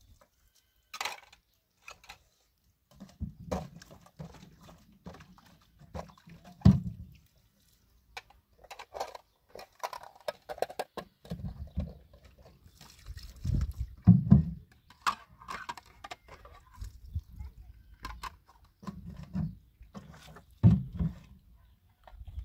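Water poured in short spells from a plastic jerry can, splashing over dishes being rinsed, with light knocks of the dishes against each other and a few low dull bumps.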